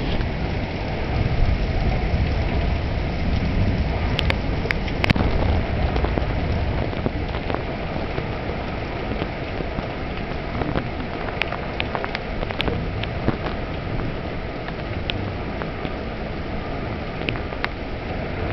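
Heavy rain falling steadily, with scattered sharp taps of drops hitting close by. A low rumble of thunder dies away over the first several seconds.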